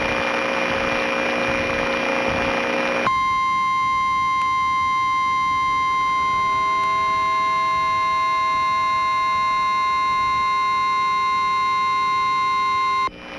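About three seconds of radio static hiss, then an emergency-alert warning tone: a single steady, high-pitched buzzing tone held for about ten seconds that cuts off suddenly. It is the warning alarm that precedes a National Weather Service tornado warning broadcast.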